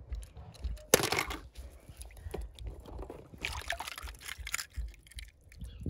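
Water splashing and dripping as a wet die-cast toy car is lifted out of a tub of water and handled, with a sharp click and splash about a second in and a longer splashy stretch around the fourth second.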